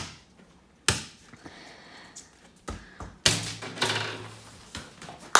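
A basketball shot at a small indoor hoop: a sharp knock at the start, the loudest sound, then another about a second in and several smaller knocks and thuds as the ball strikes the hoop and bounces, with a longer clatter around three to four seconds in.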